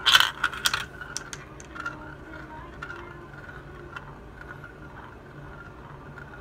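A glass marble drops through the funnel's hole into a jar of glass marbles, clacking against them in a burst of sharp clicks in the first second, with a few lighter ticks after. Then a single glass marble rolls round and round the plastic funnel bowl with a steady rolling sound.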